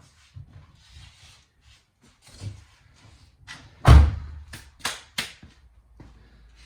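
A series of knocks and bangs: a few light knocks, then a heavy thud about four seconds in, the loudest of them, followed by three quick sharp clacks.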